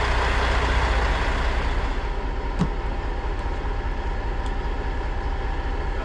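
Large engine running steadily, easing off slightly about two seconds in, with one short knock a little later.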